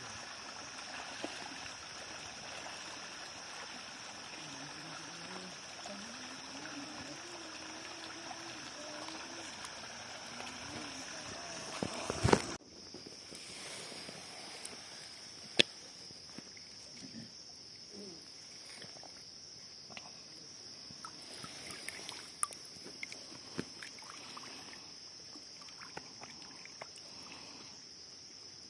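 Shallow river water running over stones, under a steady high drone of forest insects. About twelve seconds in a loud burst of noise breaks off suddenly, and from then on it is quieter, with scattered small splashes and knocks of people wading and groping in the water.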